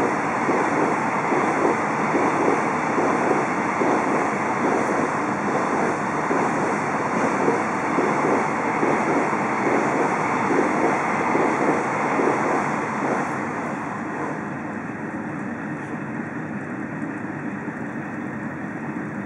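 Container freight train passing through at speed, its wagon wheels clattering rhythmically over the rail joints, roughly two beats a second. The noise fades about two-thirds of the way in, leaving a steadier, quieter hum.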